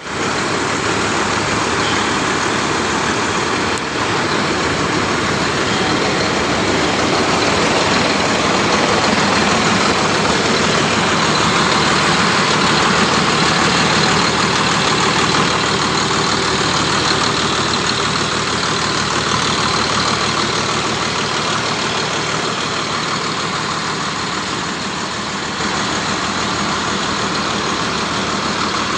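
DTH water-well drilling rig running steadily: a loud, continuous mechanical rush of engine and air noise, with a brief dip about four seconds in and another change near the end.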